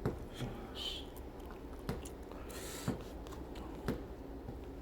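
Thin protective film being peeled off refrigerator sheet steel by hand: faint crinkling with soft clicks about once a second and a short rasp about two and a half seconds in. The film is stuck on firmly.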